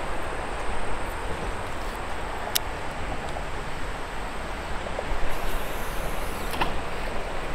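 Steady low rumble and hiss of outdoor background noise, with a single sharp click a couple of seconds in and a few faint clicks near the end.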